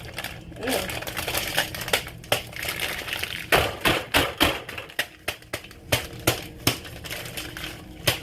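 Takis chips being crushed: an irregular run of sharp crunches and knocks, coming thicker and harder from about halfway through.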